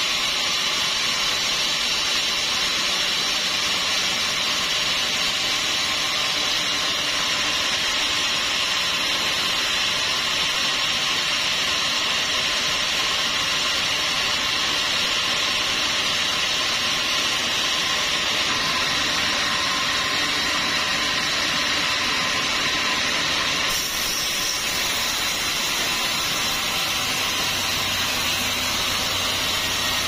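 Vertical band sawmill running, its blade sawing through a large log with a steady, even hiss.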